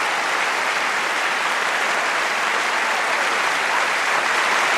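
Applause from a large crowd, a dense steady clapping that gets a little louder near the end.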